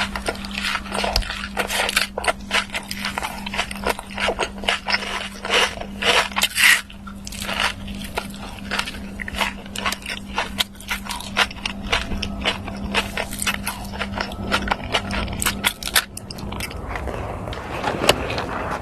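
Close-up eating sounds: biting and chewing crunchy food, with dense, irregular crackling crunches. A low steady hum sits underneath and stops near the end.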